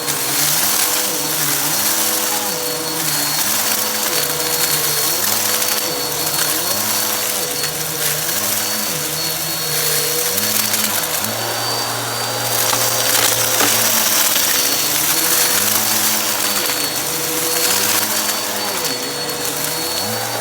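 Vacuum cleaner running steadily on carpet with a constant motor whine, its lower hum swelling and dipping about once a second as it is pushed back and forth in strokes. The strokes pause briefly about halfway through, then resume.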